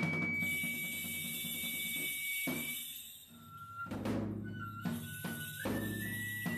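Shinto kagura music for a shrine maidens' dance. A high bamboo flute holds one long note, then plays a slow stepped melody, over irregular drum strokes and the jingle of hand-held bells.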